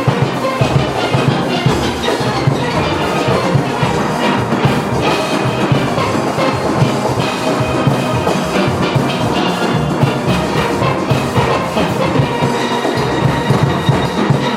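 Steelband playing: many steelpans sounding together over a steady percussion beat.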